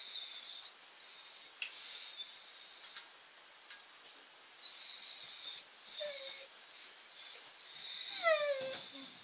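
Puppy whining in a series of high-pitched, drawn-out whines, the loudest about two seconds in; near the end a whine slides down steeply in pitch. A few short clicks fall between the whines.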